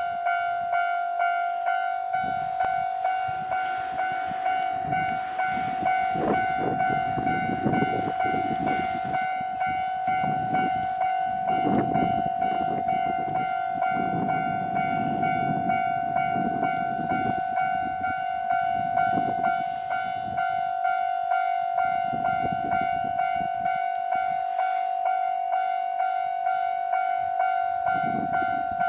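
Japanese level-crossing alarm ringing steadily in a fast repeating pulse. A 485-series electric train passes over the crossing from about three seconds in to about twenty, its wheels rumbling and clattering on the rails.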